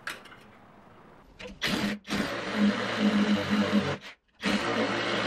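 Electric hammer drill running as it bores through the hole of a metal angle bracket into the wall. It starts about a second and a half in, stops briefly about four seconds in, then runs again.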